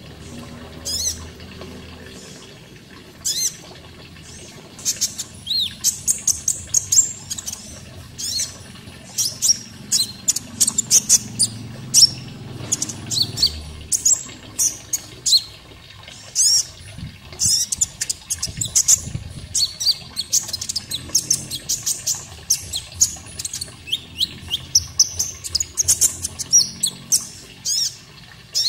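Konin birds chirping: a run of short, sharp, high chirps, sparse at first and then coming thick and fast, over a faint steady sound of running water.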